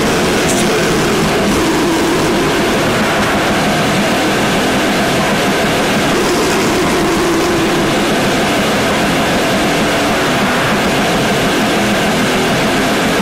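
Raw, lo-fi bestial black metal/noise recording: a loud, unbroken wall of distorted noise with no clear beats or vocals.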